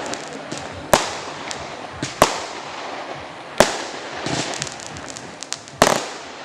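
Fireworks going off: four loud, sharp bangs at uneven intervals of one to two seconds, each with a short trailing echo, and a burst of crackling between the third and fourth bangs.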